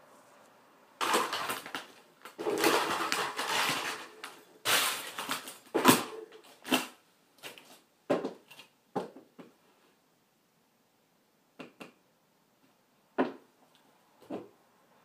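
Plastic toy cars and trucks being kicked and stepped on by high-heeled shoes: a few seconds of dense clattering and crunching, then single knocks about half a second apart, the loudest about six seconds in. After a pause there are a few more knocks near the end.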